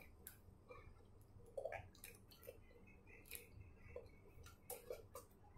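Faint chewing and wet mouth clicks from someone eating blanched sweet potato tops with their fingers, a dozen or so small scattered ticks over near silence.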